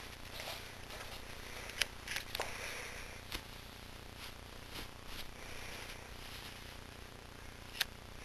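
Quiet room with a steady low hum, broken by a few faint scattered clicks and soft rustles of bedding.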